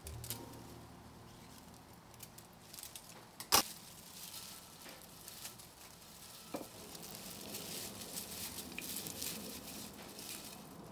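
Bunch of dried flower and grass stems rustling as it is handled and pushed into a ceramic vase, with scattered small clicks and one sharp click about three and a half seconds in.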